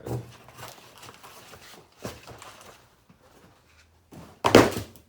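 Unboxed items and packaging being handled: a few small knocks and clicks, then one loud thunk about four and a half seconds in.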